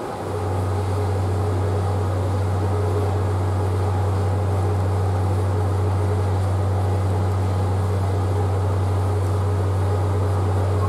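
Cruise ship's horn sounding one long, deep, steady blast of about ten seconds that starts and stops cleanly: the prolonged blast a ship gives as it gets underway from its berth.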